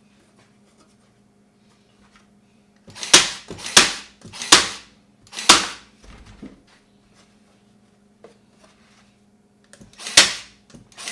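Milwaukee battery-powered stapler firing staples through fabric into a wooden frame: four sharp shots about a second apart starting about three seconds in, then one more near the end.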